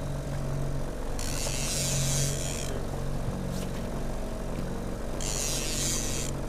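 Boat's outboard motor running steadily at trolling speed, a low even drone, with two bursts of hiss lasting a second or so, about a second in and again near the end.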